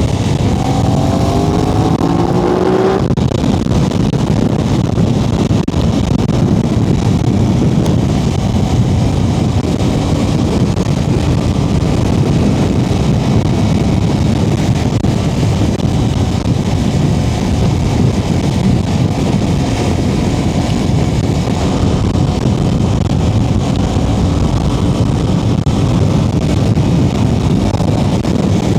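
Aprilia RS660's parallel-twin engine under way: for the first three seconds it accelerates with a rising pitch that breaks off suddenly, then it runs steadily at speed with a dense rush of engine and road noise.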